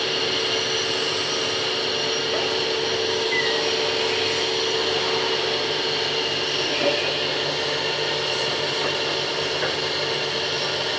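Hydraulic system of a crane truck running steadily: an even machine whine with several held tones over a hiss.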